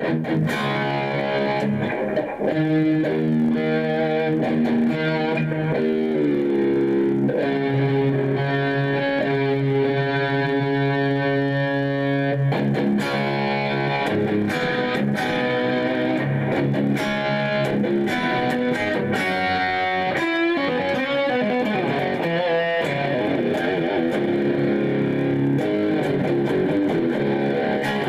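Electric guitar played through an amplifier with a lot of gain, letting chords and single notes ring and sustain, changing every few seconds. The tone is overdriven, with too much gain on it.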